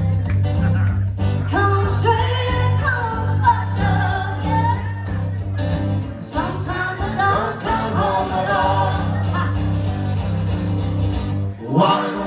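Live acoustic band music: strummed guitar over a steady bass line, with singing.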